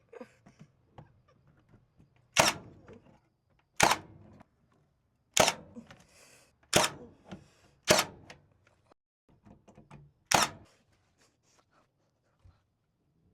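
Six sharp knocks, one every one to one and a half seconds, each with a short ringing tail, as a fan mounting is worked into place.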